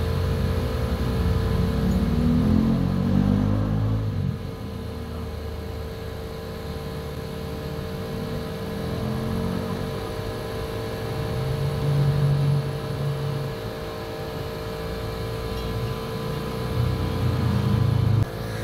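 A motor engine running unevenly, rising and falling in pitch in several surges over a steady hum, and cutting off abruptly near the end.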